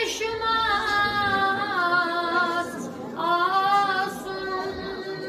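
A boy's high voice singing a Kashmiri naat unaccompanied, holding long wavering notes that slide slowly down in pitch. A new phrase begins about three seconds in.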